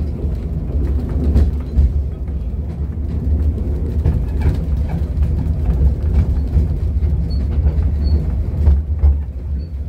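Steady low rumble of a small railway passenger carriage rolling along the track, with scattered clicks and knocks from the wheels on the rails.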